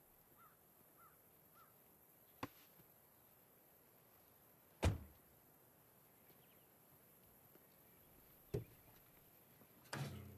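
Four separate sharp knocks or thuds spread over about eight seconds, the loudest near the middle and the last with a short ringing tail. They sound over faint outdoor quiet, with a few faint bird chirps in the first two seconds.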